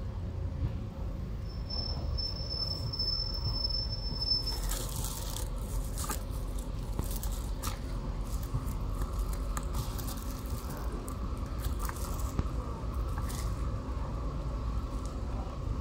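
Cat and kittens chewing and crunching food, heard as many small wet clicks and bites from about four seconds in, over a steady low rumble. A thin steady high whistle sounds for about three seconds near the start.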